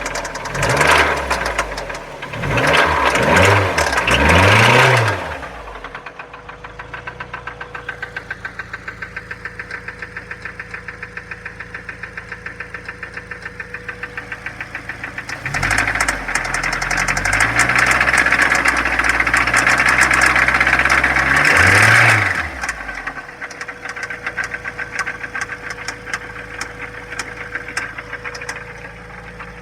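2004 Mazda Miata's four-cylinder engine revved in a few quick blips at the start, held at higher revs for several seconds midway, and otherwise idling with a regular metallic clicking. The owner thinks the clicking could be valves or something worse.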